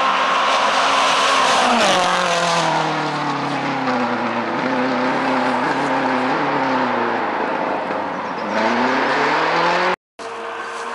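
Rally car engine at high revs, its pitch dropping sharply about two seconds in, then staying lower and wavering before climbing again near the end as the car accelerates. The sound cuts out for a moment just before the end.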